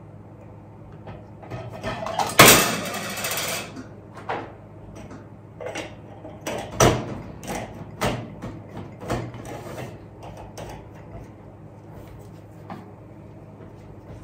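Plastic lab-ware being handled: a loud scraping rattle lasting about a second from two seconds in, then a scatter of light clicks and knocks as a vacuum filter funnel is worked off a media bottle and its cap loosened. A steady hum from a laminar flow hood's fan runs underneath.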